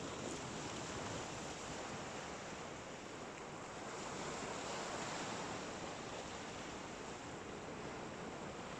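Surf washing onto the beach: a steady rush of waves that swells a little about four to five seconds in, with some wind on the microphone.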